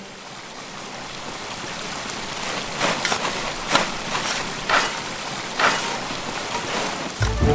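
Rushing creek water that swells in over the first couple of seconds, with a short splash about once a second.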